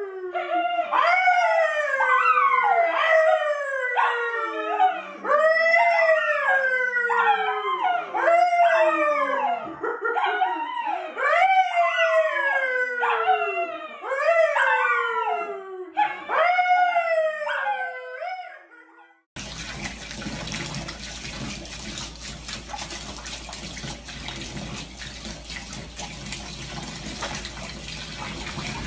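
A man and a brown toy poodle howling together: a long series of drawn-out howls, each one sliding down in pitch. About two-thirds through it cuts off and gives way to a steady rush of water in a bathtub.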